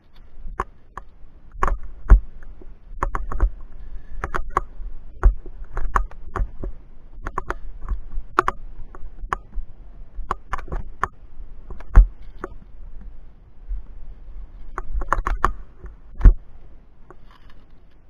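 Irregular metallic clinks and clacks of via ferrata carabiners and a fixed chain knocking together against rock as a climber moves along it, with a few louder knocks, about two, twelve and sixteen seconds in.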